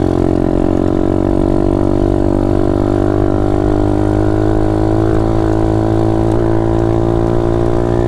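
Taotao DB17 125 pit bike's single-cylinder four-stroke engine running at a steady throttle while riding, an even drone whose pitch barely changes.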